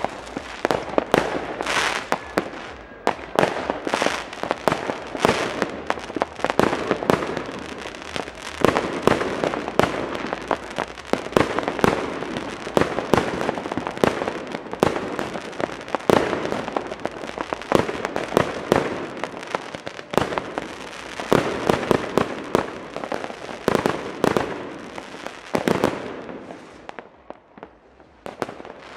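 Fireworks, aerial rockets and firecrackers, going off in a dense, near-continuous barrage of overlapping bangs. The bangs thin out and die down about three seconds before the end.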